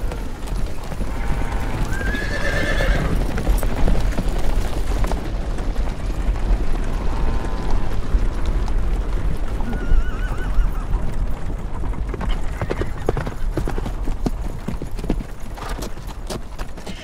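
Many horses' hooves clopping on dry ground, with horses whinnying several times in the first part and the hoofbeats growing thicker near the end, over a low rumble.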